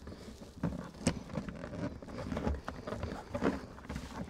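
Scattered light clicks and knocks of hands handling parts while a rear light cluster is fitted to a car, with a sharper click about a second in and a few knocks together near the end.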